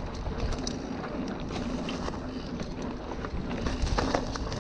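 Specialized Stumpjumper mountain bike rolling fast along a dry dirt singletrack, tyres rumbling over the ground with many small clicks and rattles from the bike, a few louder knocks near the end. Wind rushes over the microphone.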